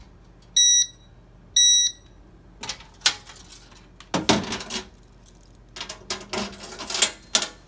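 Two short, loud electronic alarm beeps about a second apart, from a fire alarm sounder, followed by a run of clicks and knocks as equipment is handled.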